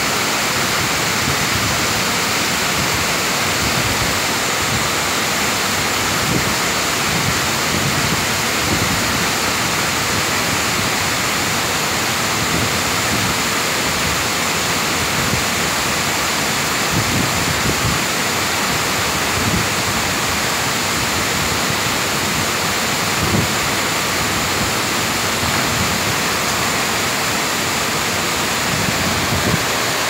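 Wide, multi-tiered waterfall pouring over rock into its pool: a steady, even rush of falling water.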